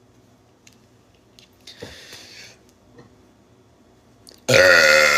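A person's loud, drawn-out burp begins near the end, its pitch falling. Before it there is only a faint breath and a few small clicks.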